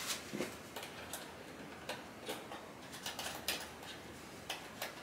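Irregular light clicks and ticks, a few a second, from handling and unscrewing the speaker binding posts on a Marantz MM7055 power amplifier.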